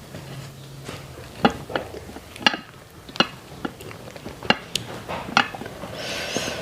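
Utensils clinking and knocking against dishes: about ten sharp separate strikes, some ringing briefly. A short rustling noise comes near the end.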